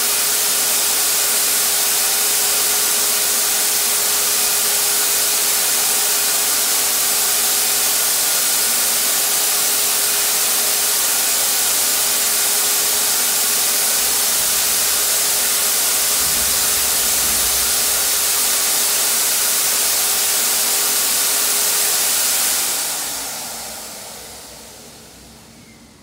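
Harbor Freight HVLP turbine paint sprayer running: a steady rush of air through the hose and spray gun over a constant hum from the turbine blower. About 22 seconds in it winds down and fades out over roughly three seconds.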